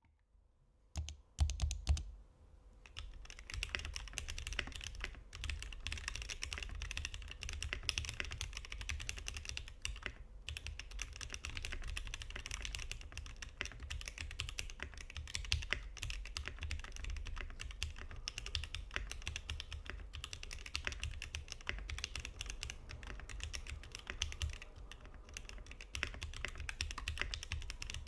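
Satisfaction 75 mechanical keyboard with lubed and filmed Gateron CJ linear switches on an FR4 plate and GMK keycaps being typed on: a few separate keystrokes about a second in, then fast, continuous typing with a dense run of key clacks.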